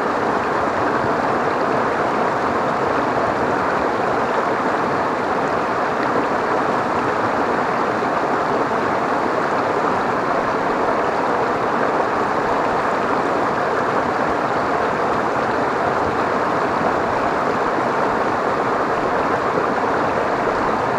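River water rushing steadily over a small rock cascade between boulders, recorded close to the water's surface.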